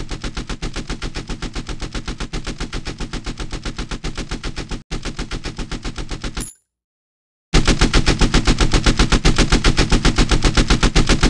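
.50 caliber machine gun sound effect: automatic fire in two long bursts of rapid, evenly spaced shots, broken by a pause of about a second some six and a half seconds in. The second burst is louder.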